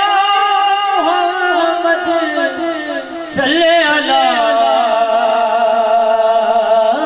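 A man sings long, drawn-out, wavering notes of a Punjabi naat over harmonium accompaniment. There is a short break about three seconds in before the next phrase.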